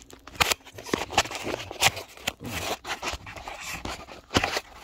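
Tools and objects being handled on a cluttered workbench: an irregular run of sharp clicks and knocks mixed with scraping, rustling handling noise.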